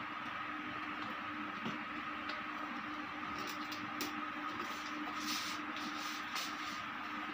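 Fingers pressing a clear LED light strip into the seam of a plastic car door trim panel: faint scratching and small clicks of plastic, more of them in the second half, over a steady low hum.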